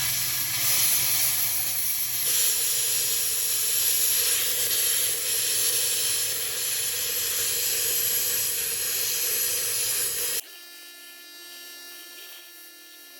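A steady, loud hiss of a gas or air jet that cuts off abruptly about ten seconds in, leaving a much quieter background with faint steady tones.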